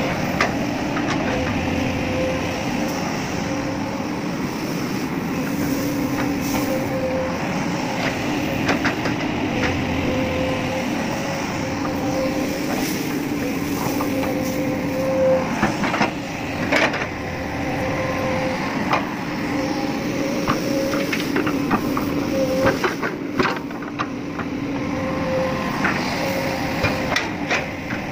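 Excavator engine running steadily while loading iron chips with a magnet, with scattered sharp metallic clanks and knocks over it.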